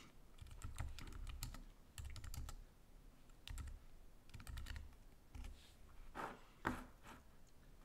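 Typing on a computer keyboard in short bursts of keystrokes, with a sharper, louder key press near the end.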